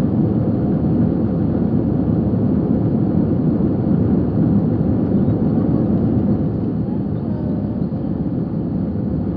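Jet airliner heard from inside the passenger cabin: a steady rumble of engines and airflow that eases slightly about six seconds in.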